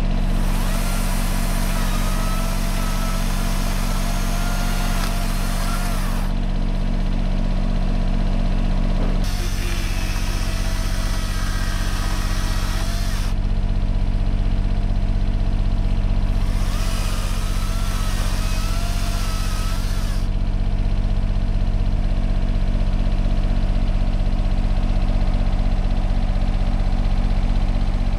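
John Deere 755 compact tractor's three-cylinder diesel engine running steadily, its note shifting about nine seconds in. A hiss with a wavering whine over it comes and goes three times.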